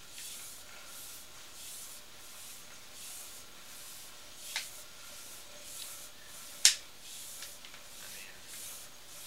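Sewer inspection camera's push cable being fed by hand into the drain line: a soft hiss that swells and fades about twice a second, with a few sharp clicks, the loudest about two thirds of the way in.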